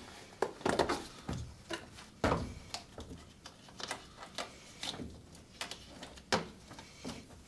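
Irregular plastic clicks and taps with fabric rustling as the channels on the lower edge of a lawnmower's mesh grass collector bag are worked and clipped over the bar of its plastic frame.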